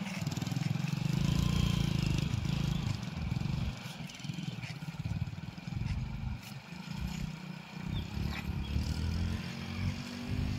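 Motorcycle engine running at low revs, the throttle swelling and easing as the bike creeps across a narrow wooden plank bridge, with a few faint clicks along the way.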